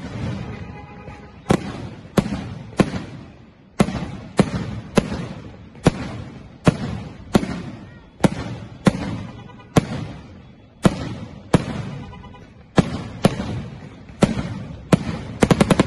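A 2-inch, 25-shot firework cake firing shot after shot of banger shells. Sharp bangs come about every two-thirds of a second, each trailing off in a rolling echo, and end in a quick flurry of about five bangs close together.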